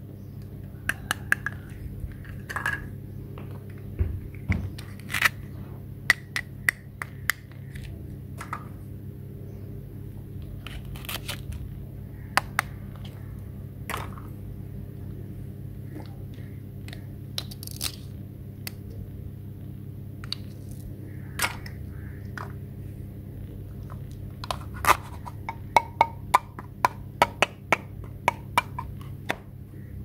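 Plastic toy fruit pieces and a plastic toy knife being handled: scattered sharp plastic clicks and taps, coming thick and fast near the end, over a steady low hum.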